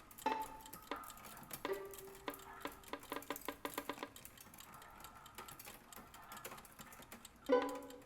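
Music for violin and electronics: a fast scatter of small clicks and clinks from recorded apartment sounds, with short plucked violin notes among them and a louder plucked note about seven and a half seconds in.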